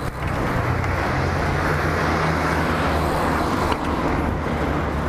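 Steady road and traffic noise with wind rush over a GoPro on a BMX being ridden along a street, the bike's tyres rolling on the pavement. A light knock comes a little under four seconds in.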